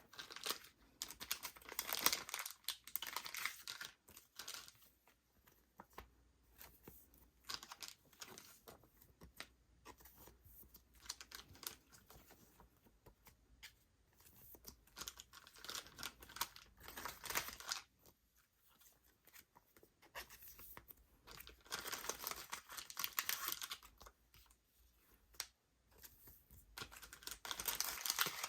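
Album packaging and inserts handled by hand: paper and plastic rustling, crinkling and tearing in irregular bursts, with small clicks and taps in between.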